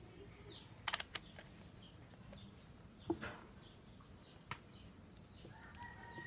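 Light clicks and a knock from handling a wall fan's motor stator and a digital multimeter on a cloth-covered workbench, with a few sharp clicks about a second in. Faint small-bird chirps repeat throughout, and a distant rooster starts to crow near the end.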